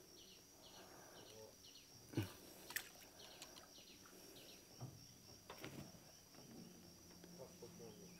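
Faint natural background: a bird repeats short falling chirps, about two or three a second, in two runs, over a steady high insect drone. A single dull knock comes about two seconds in, followed by a small click.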